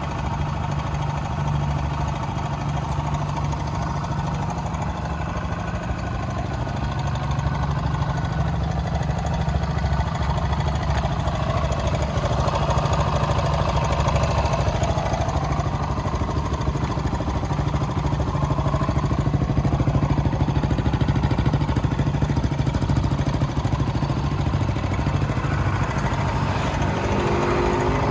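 Kawasaki KLX125's single-cylinder four-stroke engine idling steadily, a little louder through the middle stretch.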